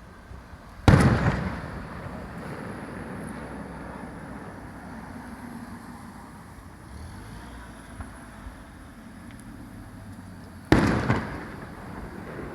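Two fireworks shells bursting overhead, one about a second in and one near the end, each a sharp bang followed by a rolling echo that dies away.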